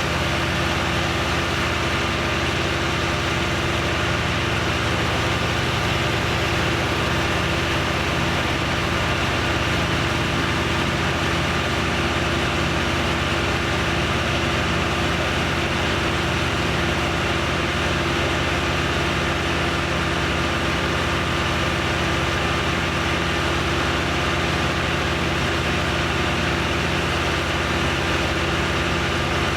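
An engine running steadily at an even speed, with no revving, holding a constant hum and a thin high tone.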